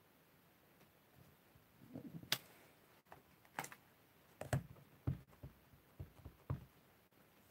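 Clear acrylic stamp block tapping onto an ink pad, inking a rubber flower stamp: a handful of light clicks and taps, starting about two seconds in and spread over the next five seconds.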